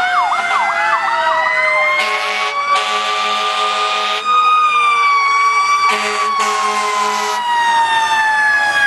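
Fire engine sirens passing close by: a fast yelp at the start gives way to a slow wail that rises and then falls. Blasts of a fire truck air horn cut in twice, a short one then a long one each time, about two and six seconds in.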